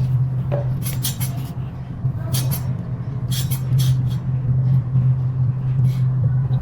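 A steady low hum with scattered light metallic clicks and clinks over it, some in quick twos and threes.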